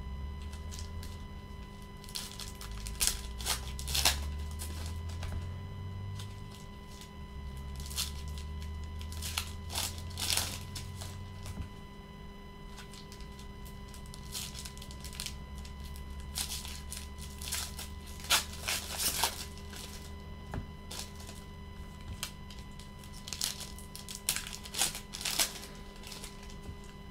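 Trading cards being handled with gloved hands: scattered short rustles and slides of cards on the stack, with the crinkle of torn-open foil pack wrappers, over a steady faint hum.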